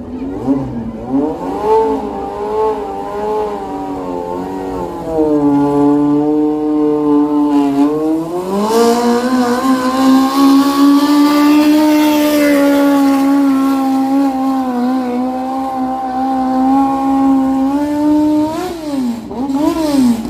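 Mini modified pulling tractor's motorcycle engine running hard under load during a pull. The engine note climbs early, sags about seven seconds in, then rises and holds high for most of the pull, and near the end drops away with a few short revs.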